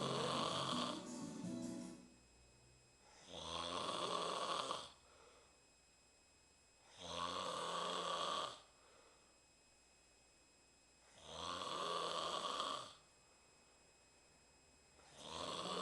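A woman snoring in her sleep: a long rasping snore about every four seconds, five in all, each lasting about a second and a half.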